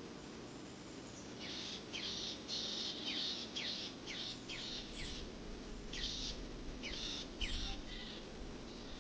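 A songbird calling in a quick series of short, high notes that slide downward, a few each second, starting a little over a second in and stopping near the end, over a faint steady outdoor hiss.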